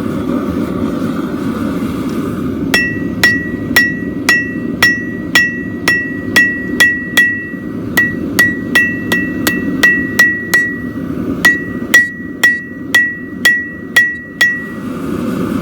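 Hammer blows on hot steel on a 110-pound steel anvil, about two a second, each strike ringing with a clear high note. The hammering starts a few seconds in, pauses briefly about two-thirds of the way through, and stops near the end, over a steady low rushing noise.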